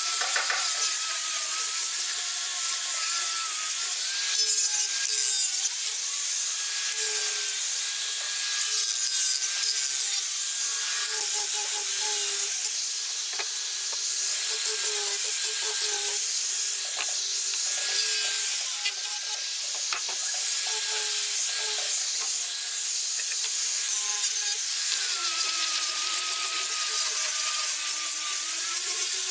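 Electric angle grinder with a sanding disc, its motor whining steadily as the abrasive rubs across a pine panel. The whine dips in pitch a few seconds before the end and comes back up.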